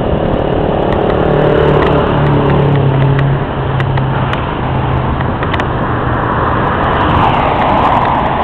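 Traffic noise: a steady engine hum for the first few seconds over continuous road noise, with a car passing near the end.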